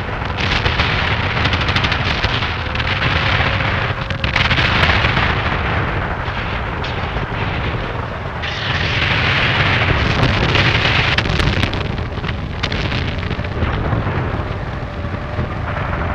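Artillery sound effect: a continuous rumble of blasts and explosions with no quiet between them, swelling louder several times.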